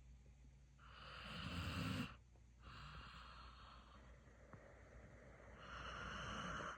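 Sleeping German Shorthaired Pointer puppy snoring: two long snoring breaths that build and cut off sharply, one about two seconds in and one near the end, with a softer breath between.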